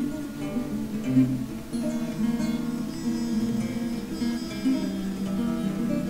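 Instrumental acoustic guitar music, a run of changing plucked notes.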